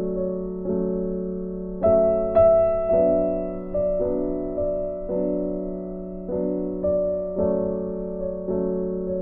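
Soft background piano music: notes and chords struck every half second to a second, each fading away before the next.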